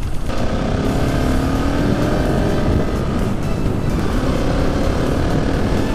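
Husqvarna 701 Supermoto's single-cylinder engine running under acceleration, its pitch slowly rising, with heavy wind noise over the microphone.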